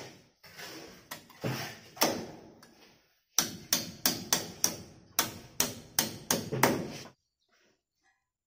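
Hammer driving a small nail to fix an aluminium window frame into the wall opening: a few spaced blows, then after a short pause a fast run of a dozen or so blows, about three a second, before it stops.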